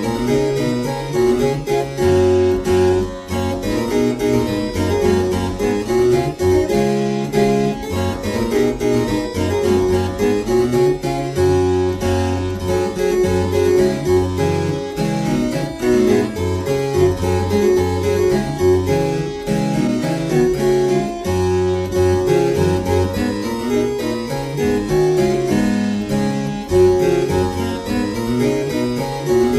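Instrumental music led by a harpsichord-like keyboard, busy plucked notes over a moving bass line.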